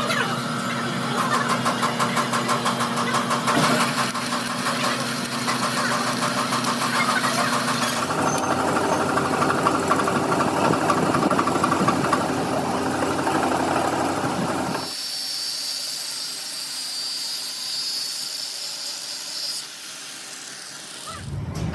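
Engine running with rapid knocking, in a sequence of cut-together shots whose sound changes abruptly several times; a steady high whine takes over near the middle and stops a few seconds before the end.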